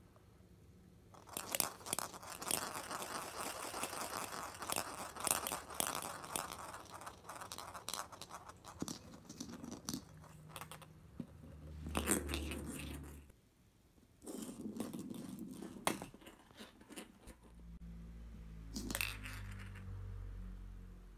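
A steel pachinko ball rattling and clattering inside a plastic gacha capsule as it is shaken and rolled on a wooden floor. There is a long run of rapid rattling, then a few shorter bursts.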